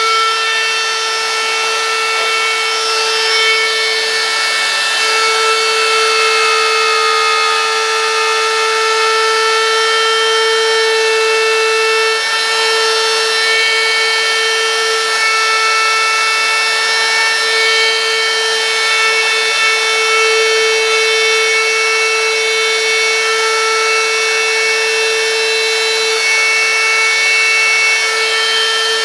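Handheld router running at speed with a small carving bit cutting freehand detail into a wooden sign: a steady motor whine with the rasp of the bit in the wood.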